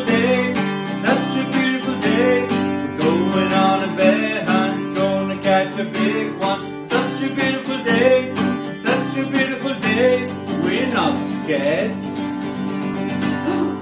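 Acoustic guitar strummed in a steady rhythm, with a man's voice singing over it that wavers up and down near the end.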